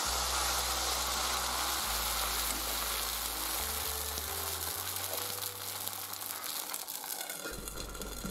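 Onion appam batter sizzling on a hot iron dosa tawa wiped with coconut oil, a steady hiss as the batter is poured and spreads, growing fainter toward the end.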